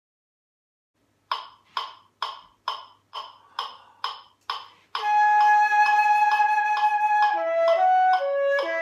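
A metronome clicking steadily about twice a second, eight clicks as a count-in after about a second of silence. About five seconds in, a concert flute enters playing over the continuing clicks.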